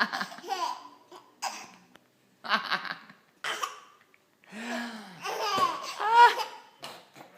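A baby laughing in a string of short separate bursts, with hiccups catching between the laughs. A longer run of laughter starts about four and a half seconds in and is the loudest part.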